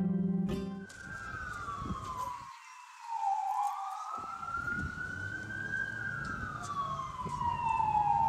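Emergency vehicle siren wailing, its pitch sliding slowly down, up and down again, about one rise and fall every five seconds. It takes over as music with plucked strings stops about a second in.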